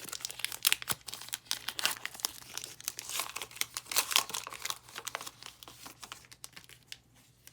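Foil wrapper of a Pokémon trading card booster pack crinkling as it is torn open by hand, a dense run of crackles that thins out about six seconds in.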